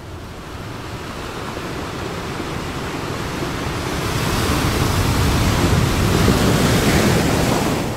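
Ocean surf: a steady wash of breaking waves that swells louder through the second half.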